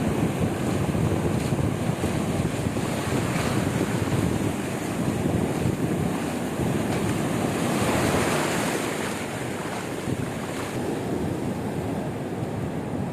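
Sea waves breaking and washing up a beach, with wind buffeting the microphone. The surf swells to its loudest a little past the middle and then eases off.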